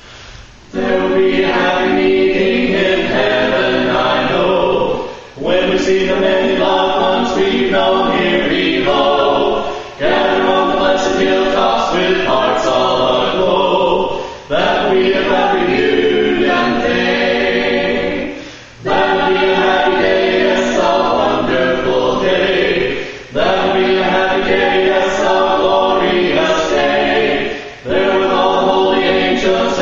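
Mixed vocal quartet of one woman and three men singing a gospel song a cappella in harmony. The singing comes in phrases of about four to five seconds, with short breaks for breath between them.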